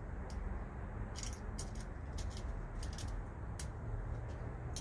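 Light, scattered clicks and taps of a concealed cabinet hinge and its screw hardware being handled and fitted onto aluminum extrusion, over a steady low hum.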